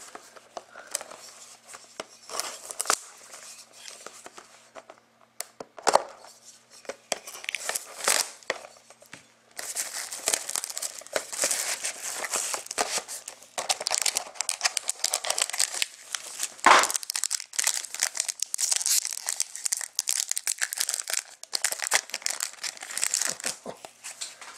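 Plastic shrink wrap being torn and crumpled off a sealed hockey card box, and the box being opened by hand. A few sharp snaps and rustles at first, then steady crinkling and tearing from about ten seconds in.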